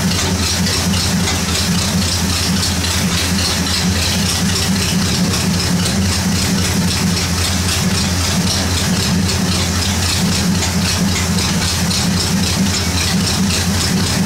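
1953 Ford Golden Jubilee tractor's four-cylinder gasoline engine idling steadily through vertical exhaust stacks, still cold and not yet warmed up to temperature.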